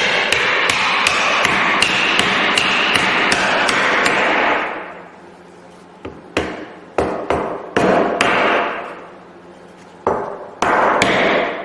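Repeated hammer blows driving a wooden stool leg's tenon down into its mortise in the seat: a quick run of about three strikes a second for the first four seconds or so, then scattered single and paired strikes as the leg's shoulder comes down flush on the seat.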